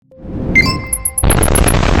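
A short musical sting of held tones with a quick run of about eight high pips. About a second in, a loud, steady rushing noise cuts in abruptly and carries on.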